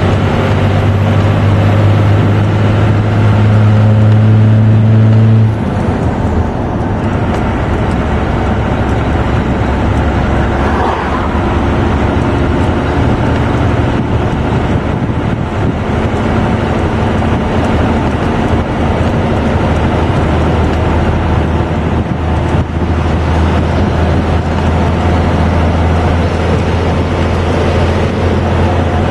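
Inside the cab of a Dodge 2500 pickup, its 12-valve Cummins inline-six turbodiesel drones at highway speed under the load of a towed bulldozer, with road noise. The engine's low hum climbs slightly, then drops away suddenly about five seconds in, and returns to a steady drone.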